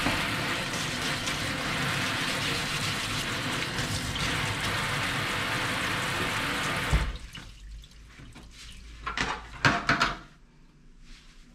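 Tap water running hard from a faucet onto a perforated plastic crate in a stainless steel sink, a steady rush that cuts off about seven seconds in. A few short knocks follow a couple of seconds later.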